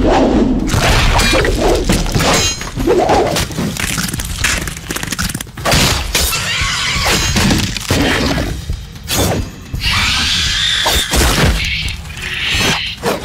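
Film action soundtrack: dramatic music mixed with repeated crashes, smashing and breaking sounds and heavy thuds.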